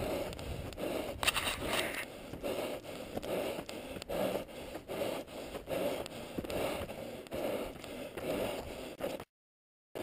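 A runner's hard breathing and footsteps on a dirt and rock trail, sped up, in a steady rhythm of about two pulses a second. The sound cuts off abruptly near the end.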